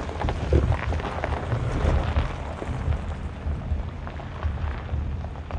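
Silverado ZR2 pickup rolling slowly downhill on loose rock and gravel, its tyres crunching and crackling over the stones, under a low, uneven rumble.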